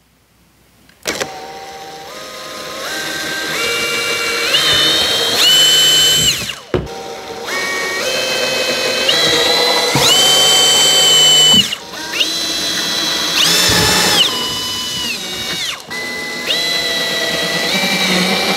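Ridgid SubCompact brushless cordless drill boring small screw holes through the plastic wall of a toolbox, in about four separate runs. In each run the motor whine climbs in pitch in steps.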